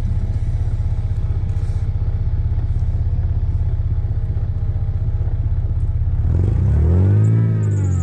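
Toyota 3.4-litre 5VZ V6 truck engine running steadily at low revs, then revving up and back down once near the end.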